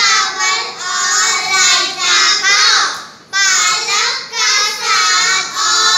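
A group of young children singing together in unison into stage microphones, an action song sung in phrases with a short break about three seconds in.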